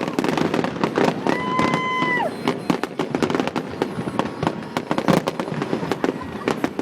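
Fireworks going off: a dense run of sharp bangs and crackles. A held whistling tone sounds for about a second, starting about a second in.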